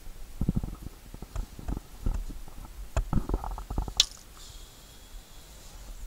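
Soft, irregular thumps and rustles of a carp being handled on a padded vinyl unhooking mat, with one sharp click about four seconds in, after which it goes quieter.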